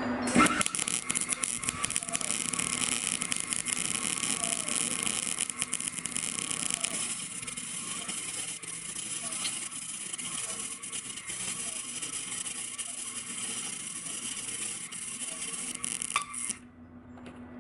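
MIG welder arc running continuously, a steady crackling sizzle, as steel is welded. It starts about half a second in and cuts off suddenly near the end.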